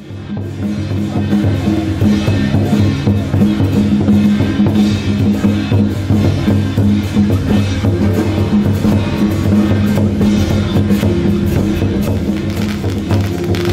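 Procession percussion of drums, gongs and hand cymbals playing continuously in a dense, steady beat, with the gongs ringing underneath.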